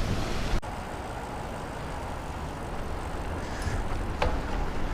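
Steady road and traffic noise heard from a moving bicycle, an even hiss with no clear tones, broken by a single sharp click about four seconds in.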